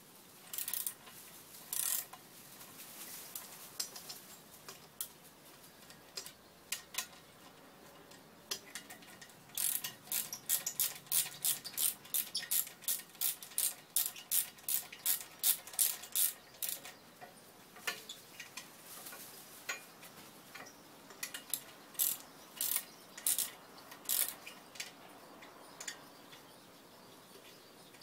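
Ratchet wrench clicking in quick back-strokes while loosening the cylinder-head bolts of a Koshin engine pump. There are scattered clicks, then a fast run of about three strokes a second in the middle, with occasional metal tool clinks.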